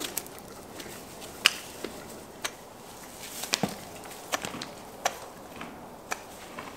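Hoof pick scraping and knocking packed mud out of a pony's hoof: a scatter of sharp, irregular scrapes and clicks, about one a second.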